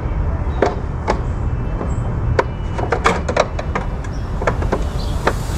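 Stump grinder running, a steady low rumble with scattered sharp knocks and clicks, several in quick succession about halfway through, as it works an oak stump.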